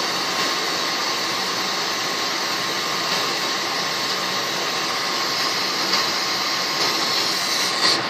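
Micro torch flame hissing steadily as it heats a silver jump ring and rod up to the melting point of the silver solder.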